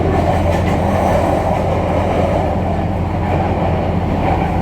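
Kyoto Tango Railway diesel railcar running, heard inside the passenger cabin: a steady low rumble of engine and wheels on the rails.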